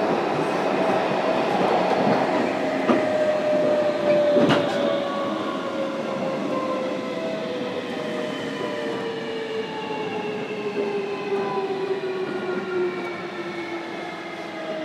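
JR Kyushu 305 series electric train heard inside motor car MoHa 305-103: the traction motor and inverter whine falls steadily in pitch as the train slows, over the rumble of the wheels on the rails. One sharp click comes about four and a half seconds in.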